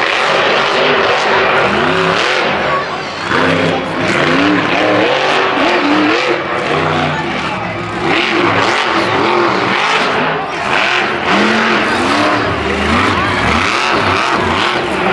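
Captain America monster truck's engine revving hard, its pitch rising and falling again and again as the truck is driven around and launched off jumps, with loud crowd noise underneath.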